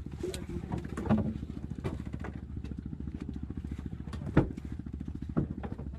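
A small engine running steadily with a fast, even low chugging, with a few sharp knocks over it, the loudest about four and a half seconds in.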